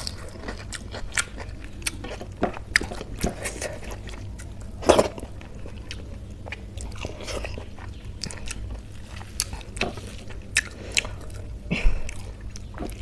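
Close-miked eating: chewing and crunching a crisp fried wafer, with wet mouth clicks and smacks scattered throughout. The loudest crunch comes about five seconds in.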